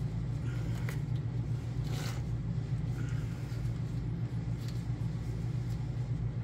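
A steady low hum, with a few faint clicks as a pick and gloved fingers work a plastic wiring connector loose.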